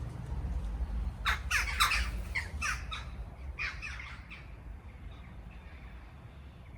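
A bird giving a quick series of short, harsh calls, about seven in all from about a second in, then a last cluster near four seconds. A low rumble runs underneath and fades away.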